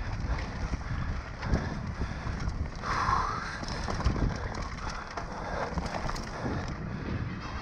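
Mountain bike running fast down a dirt forest trail: wind rushing over the microphone, tyres on dirt and leaves, and the bike rattling and clicking over roots and rocks. A brief squeal about three seconds in.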